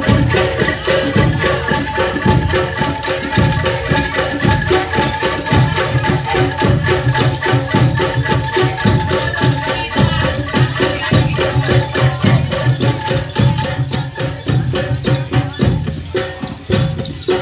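Javanese jaranan gamelan music: drums and tuned metal percussion playing a steady, dense repeating rhythm over sustained ringing tones.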